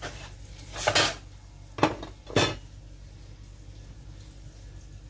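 Three clanks and knocks of kitchen pans and utensils in the first two and a half seconds, then only a low steady background.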